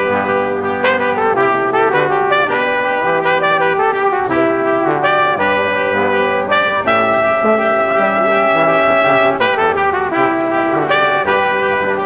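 Brass band music: trumpets and trombones playing a tune together, several instruments in harmony over a moving bass line.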